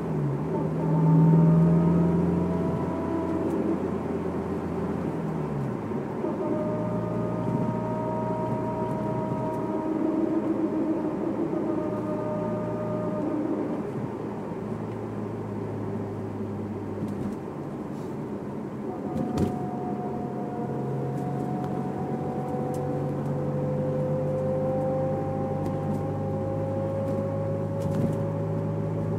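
Honda S2000 driving, its engine note carrying a thin whine that slowly rises and falls in pitch with speed. The whine comes only under throttle, and the owner cannot tell whether it is the differential or the transmission.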